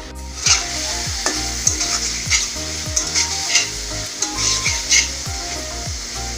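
Food frying and sizzling in a pan, with a spatula stirring and scraping now and then, under background music with a steady beat.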